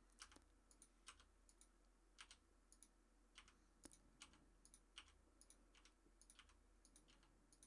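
Faint, irregular clicks of a computer keyboard and mouse, a couple a second, as keys are pressed and buttons clicked, over near silence.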